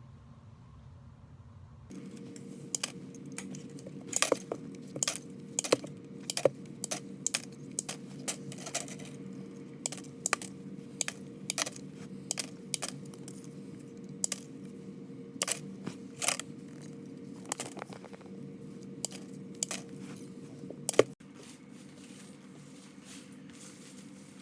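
Irregular sharp metallic clinks and clatters, a few a second, over a steady low hum. The hum cuts off right after the loudest clank, near the end.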